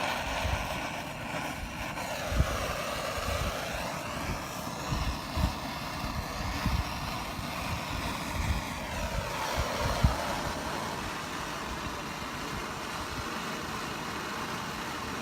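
Propane torch flame hissing steadily, with irregular low thumps of wind buffeting the microphone.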